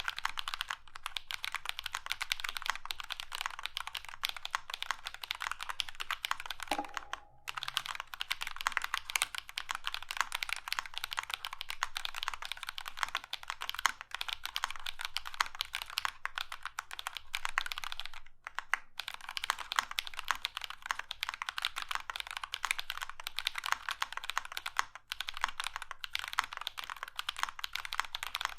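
Steady fast typing on a Prime_E 40% mechanical keyboard with lubed Drop Holy Panda tactile switches, ePBT keycaps and a foam-dampened acrylic plate and case: a dense run of keystrokes, pausing briefly about seven and eighteen seconds in.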